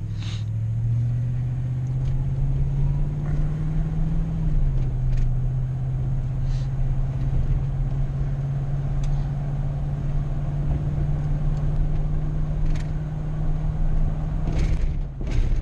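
Car engine and road noise while driving. The engine note climbs over the first few seconds, drops a step about four and a half seconds in, and then holds steady.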